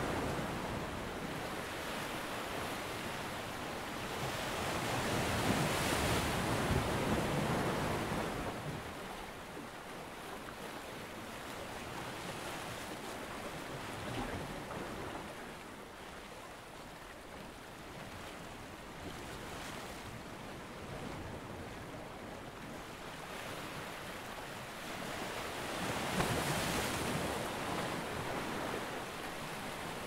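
Ocean surf: waves washing and breaking in a continuous rush that swells louder about five seconds in and again near the end.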